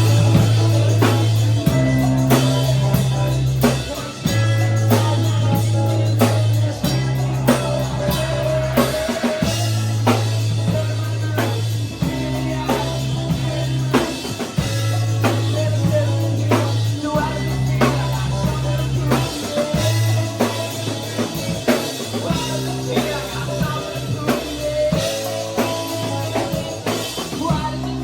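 Live rock band playing a chorus of the song: drum kit beating steadily over a bass line that holds each note about two seconds.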